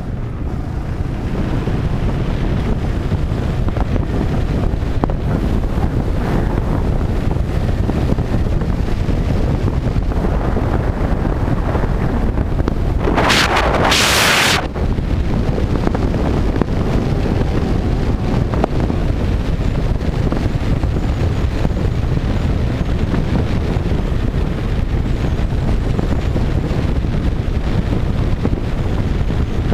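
Steady, heavy wind noise buffeting the microphone of a motorcycle riding at road speed. A sharper, brighter hissing rush lasts a little over a second about halfway through.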